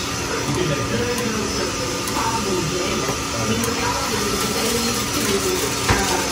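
Tortilla frying in a skillet of hot oil, a steady sizzle, with one sharp knock near the end as the fork strikes the pan.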